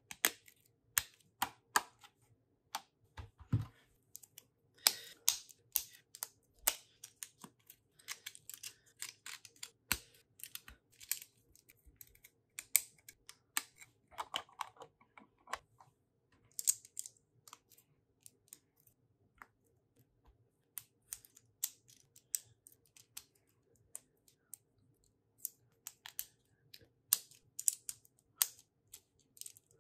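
Plastic Lego bricks clicking and snapping together as pieces are pressed on and handled, in irregular sharp clicks with short gaps, and one duller thump about three and a half seconds in.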